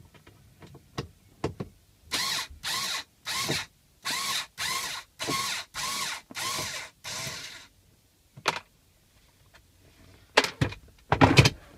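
Small cordless battery electric screwdriver running in about nine short whirring bursts, roughly one and a half a second, as it backs out a glove box screw. A click and a few sharp knocks follow near the end.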